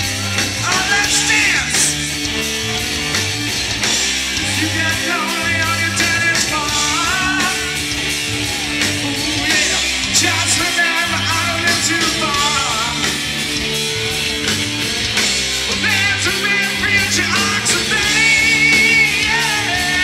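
Live rock band playing loudly: electric guitars, bass and drums, with a singer's voice wavering over a repeating bass line.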